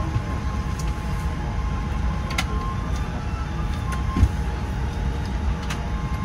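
Aircraft cabin noise aboard a Boeing 787-9: a steady low rumble with a faint constant hum, and a few short clicks about two and a half, four and six seconds in.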